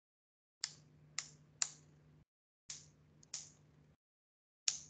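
Computer keyboard keystrokes: about six separate, faint taps at irregular intervals as keys are pressed one at a time.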